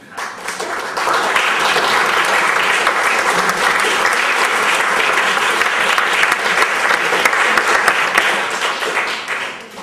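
Audience applauding: it builds within the first second, holds steady, and fades out near the end.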